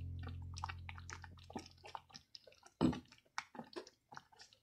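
A pot of rice boiling in water, bubbling with scattered small pops and clicks as a wooden spoon stirs it, with one louder knock about three seconds in. A held music note fades out over the first two seconds.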